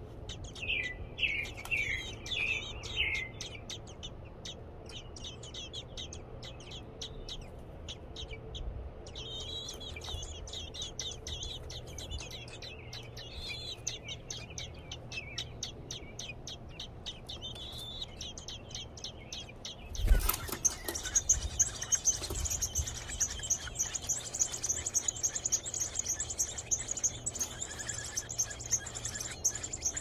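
American robin nestlings chirping in the nest. About twenty seconds in, a sudden loud rustle comes as an adult robin arrives, and the nestlings break into steady, high-pitched begging calls that continue to the end.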